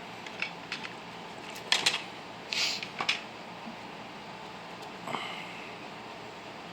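Light clicks and taps of a small plastic N scale model freight car and its plastic jewel-type case being handled, with a short hiss like a sniff about two and a half seconds in, over a steady faint background hiss.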